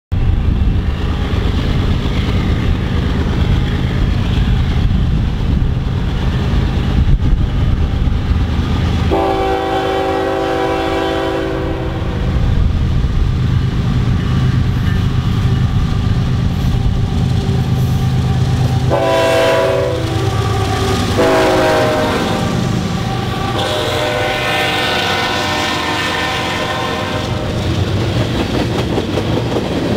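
Diesel freight locomotives approaching, a low engine rumble, with their air horn sounding a grade-crossing signal: one long blast, two shorter ones, then a final long blast. Near the end the freight cars roll past with wheel and rail noise.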